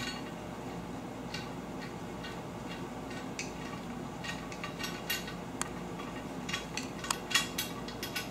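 Small metal hardware being fitted onto a sliding shower door's metal support bar: irregular light clicks and clinks of metal on metal, a few louder ones near the end, over a steady low hum.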